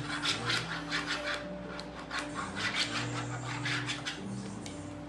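Rasping scrapes from the child's hand rubbing quickly across an orange plastic toy. The strokes come in runs of several a second, with short pauses between the runs.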